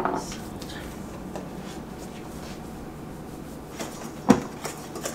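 Kitchen handling around a stainless steel mixing bowl: a knock at the start and a sharper, louder knock about four seconds in. Near the end a wire whisk starts stirring dry flour in the bowl with small ticks.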